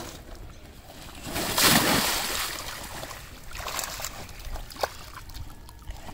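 Carp splashing and thrashing in shallow pond water as they are tipped from sacks at the bank: one big splash about a second and a half in, then smaller splashes and a sharp slap near the end.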